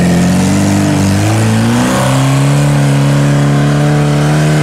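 Four-wheel-drive car's engine revving hard under load while climbing a hill. It runs at high, steady revs, and its pitch drops to a lower steady note about two seconds in.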